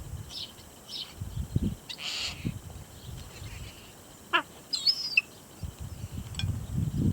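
Birds chirping: short high calls scattered through, with a quick falling whistle about four seconds in and a warbled call just after, over on-and-off low rumbling noise.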